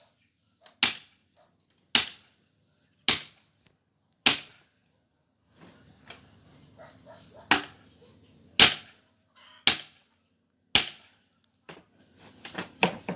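Heavy blows of a hammer on wood, struck at an even pace about once a second: four in a row, a pause, then four more, followed near the end by a quicker run of lighter knocks. This is felling work on a tree, with the chainsaw not running.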